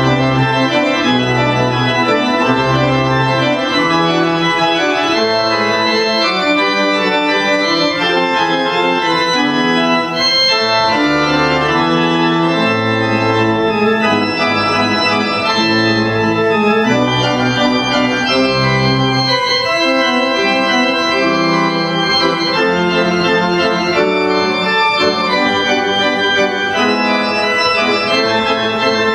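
Church organ being played: full held chords with low bass notes moving beneath them, the notes changing steadily throughout.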